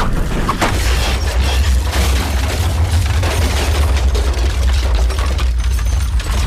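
Volcanic eruption: a loud continuous deep rumble with dense crackling and popping over it.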